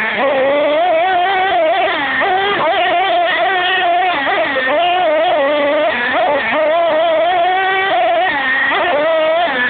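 Small nitro engine of a Savage RC monster truck with an XL 5.9 engine, heard from on board, running at high revs with a high-pitched whine that rises and falls as the throttle is worked, dipping sharply several times.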